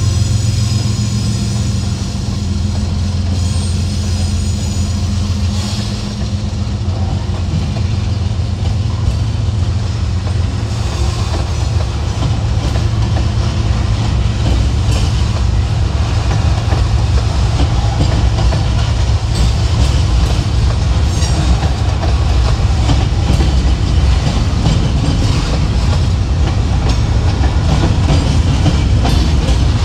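Freight train rolling past, its cars' wheels clicking steadily over rail joints under a loud rumble. A steady droning tone fades out over the first six seconds or so.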